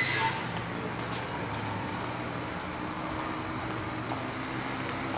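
Steady street background of distant road traffic with a low engine hum, and a brief high squeak right at the start.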